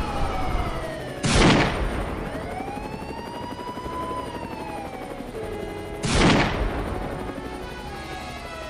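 Two loud rifle shots about five seconds apart, each with an echoing tail, over a police siren wailing slowly up and down.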